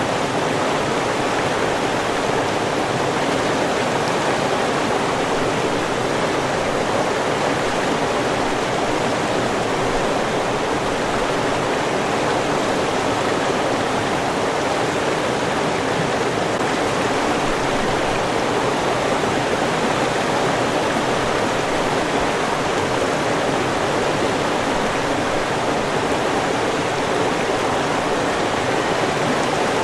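A river rushing steadily, its flowing water making a constant, even roar.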